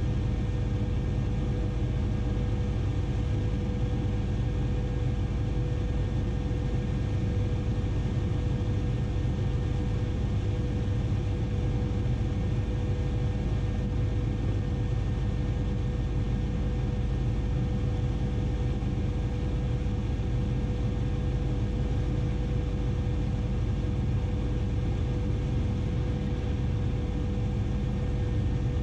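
Bell 407 helicopter in steady flight: the constant low drone of its rotor and single turboshaft engine, with a steady whine held throughout.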